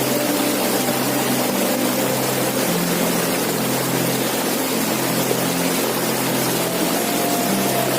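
Waterfall rushing: a loud, steady, unbroken noise of falling water, with a low hum underneath.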